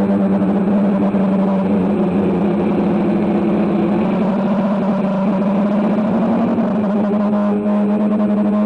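Steady hum of a quadcopter drone's motors and propellers, its pitch wavering slightly as it flies.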